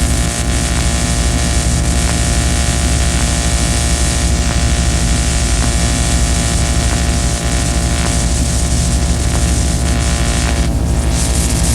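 Harsh noise music: a loud, unbroken wall of hiss over a droning low hum, with no beat or melody.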